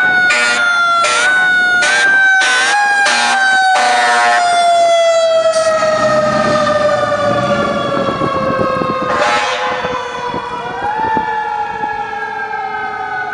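Fire truck responding with its siren wailing, the pitch sliding slowly downward, while its air horn sounds a string of short blasts about every half second, the last held longer, ending about four and a half seconds in. Near the end a siren winds back up.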